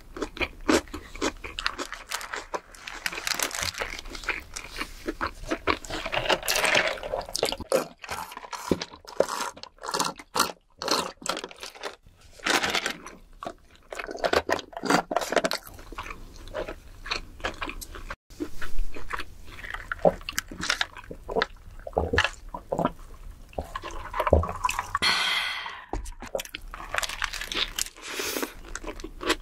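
Close-miked eating sounds of a Burger King burger: soft wet chewing with irregular mouth clicks and smacks. Partway through comes a sip of soda through a straw, and near the end another large bite of the burger.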